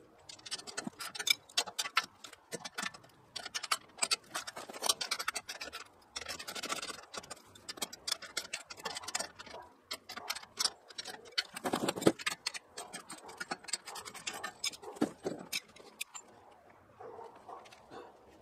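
Ratchet wrench clicking in quick runs, with metal clinks, as bolts on a steel sawmill leg stand are tightened. The clicking thins out near the end.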